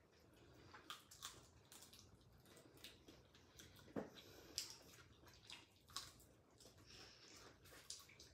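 Faint eating sounds: chewing and biting into fried chicken pieces held by hand, with scattered small mouth clicks and smacks.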